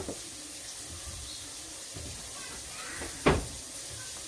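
Eggs, mushrooms and feta frying in a pan with a steady sizzle, and a single sharp knock about three seconds in.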